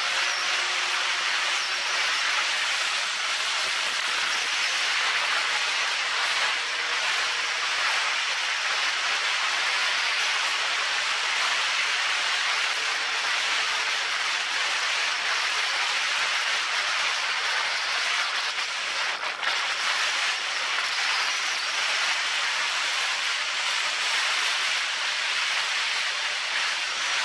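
Wind rushing over the microphone of a camera mounted on a moving motorcycle: a steady hiss at road speed, with the motorcycle engine faint underneath.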